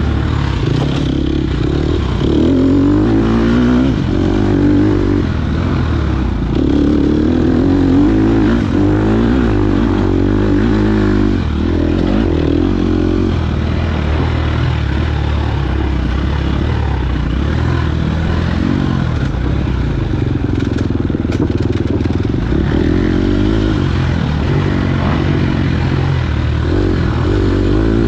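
KTM 250 XC-F four-stroke single-cylinder dirt bike engine running hard, its pitch rising and falling again and again as the throttle is opened and closed.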